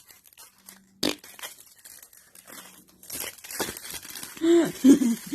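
Packaging crinkling and rustling as an item is handled and unwrapped, with a sharp click about a second in. Short vocal sounds come near the end.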